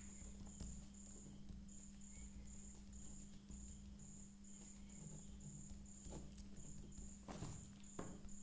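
Quiet room with a steady low hum and a cricket chirping in an even pulse, about two and a half chirps a second. A few faint clicks and scratches of a ballpoint pen writing on paper.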